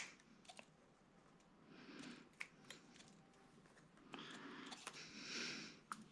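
Faint handling of Cat 6 cable wires: a sharp click right at the start, then a few small clicks and soft rustling as the wires are worked.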